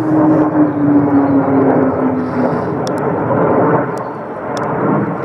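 A pair of jet fighters, which the onlookers take for F-35s, flying high overhead: a continuous jet engine noise with a tone that slowly falls in pitch over the first two seconds or so.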